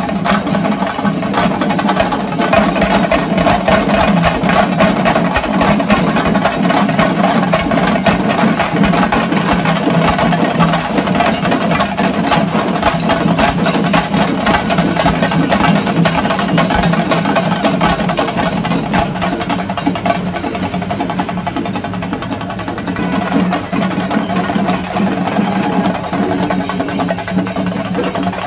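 Music with fast, continuous drumming over steady held tones.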